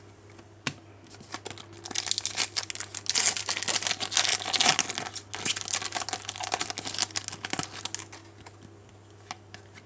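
Crinkling and crackling of trading-card pack wrapper and cards being handled. It gets busiest and loudest a few seconds in and thins out toward the end.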